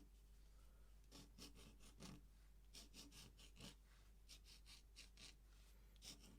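Faint scratching of an ink pen on paper: short quick strokes in runs of several, with brief pauses between runs.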